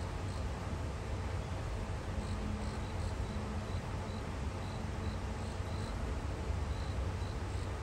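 An insect chirping: short, high chirps repeated at uneven intervals, over a steady low rumble.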